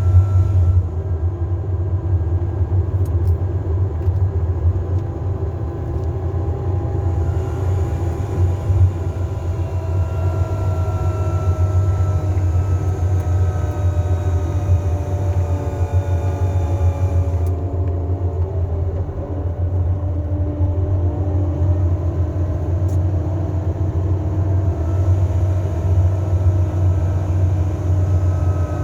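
Mercedes-Benz Travego 15 SHD coach running downhill, with a steady low drone and several faint whining tones that slowly slide in pitch. This is the engine and retarder sound of the coach braking on a descent.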